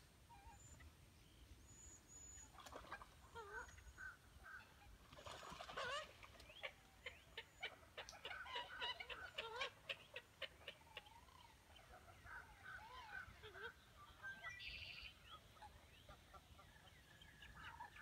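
Faint calls of birds at a wading-bird nesting colony: scattered short calls and glides, with quick runs of short repeated notes in the middle.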